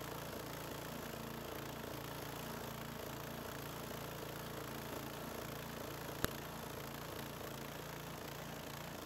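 Small gasoline engine of a Harbor Freight portable bandsaw sawmill running steadily. A single sharp click about six seconds in.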